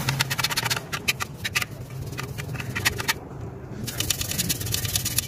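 Small plastic-bristled brush scrubbing the inside of a stained stainless steel exhaust tip in quick, uneven strokes, pausing briefly about three seconds in before scrubbing again.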